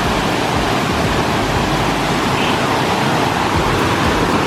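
Rushing river water, a steady, even rush.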